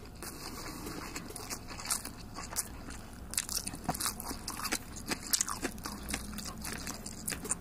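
A person chewing a mouthful of food close to the microphone, with irregular crisp crunches and clicks that come more often in the second half.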